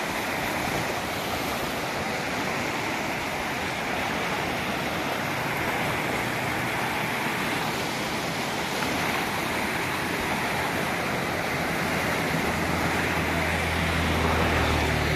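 Swift floodwater of the overflowing Cipalebuh River rushing past in a steady, even wash of water noise; the river is in flood and close to topping its concrete bank. A low steady motor hum comes in near the end.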